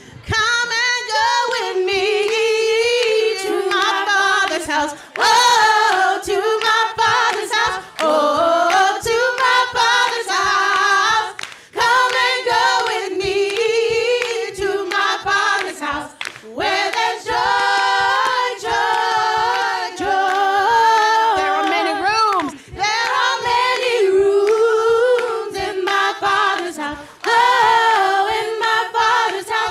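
Several women singing a cappella, with hand claps keeping the beat.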